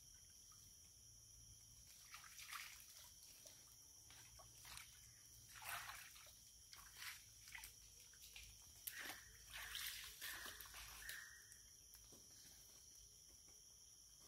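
Faint scattered sloshes and splashes of someone wading and groping in shallow muddy floodwater, clustered most near the two-thirds mark, over a steady high-pitched buzz of insects.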